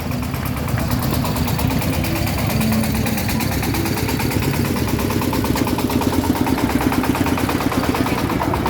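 Vehicle engine running steadily with an even pulsing beat, as the ride vehicle is about to move off.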